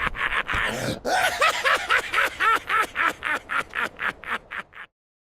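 Cartoon villain's evil laugh: a rapid string of "ha-ha" pulses, each rising and falling in pitch. One laugh ends about a second in and a second one starts, fading toward the end and cutting off suddenly near five seconds in.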